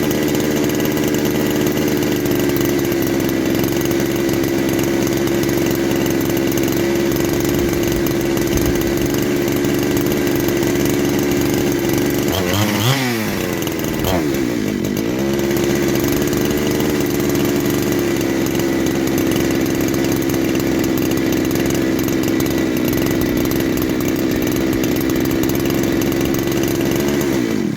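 Husqvarna 372XP clone two-stroke chainsaw running at a steady speed on a cheap replacement carburettor. About halfway through, its pitch briefly jumps, sags and recovers, and the engine cuts out suddenly at the end. The owner judges the new carburettor no good, with no air leak.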